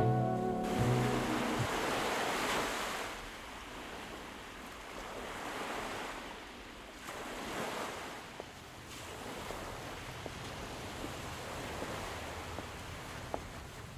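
Ocean surf washing onto a beach, rising and falling in slow swells, after music fades out in the first second or two. A few faint ticks near the end.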